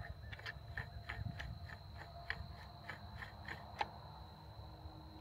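Faint, light metallic clicks, about two or three a second, as an Airlock Zero Gravity suppressor is screwed by hand onto a rifle's threaded muzzle. The clicks stop about four seconds in, after a slightly louder one.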